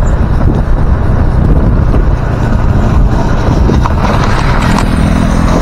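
Motorcycle riding: wind rushing over the microphone mixed with the steady running of the motorcycle engine, a low engine hum standing out near the end.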